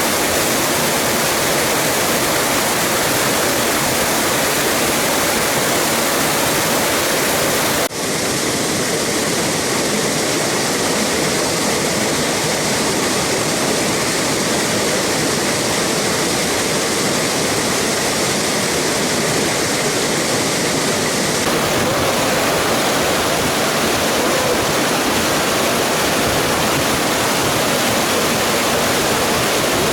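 Mountain waterfall cascading, a loud, steady rush of falling water. There is a brief dropout about eight seconds in, and the tone shifts slightly a little after twenty seconds.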